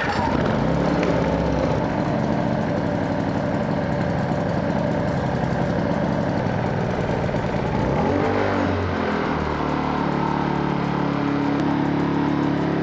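Small petrol inverter generator running steadily. About eight seconds in its engine pitch swings, then settles at a new steady speed.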